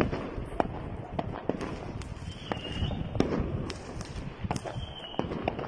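Fireworks bursting: many sharp, irregular bangs and crackles over a low rumble.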